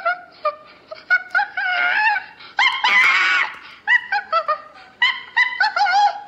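Recorded chimpanzee calls played through a Google smart display's speaker: a quick run of short pitched calls rising and falling, with a louder, harsher call about three seconds in.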